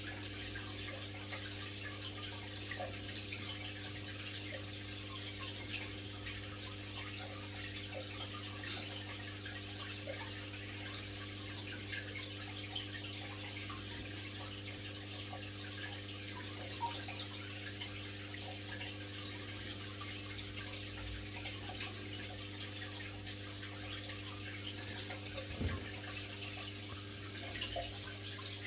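Aquarium water running and trickling with small drips and splashes, over a steady low hum from the tank's pump.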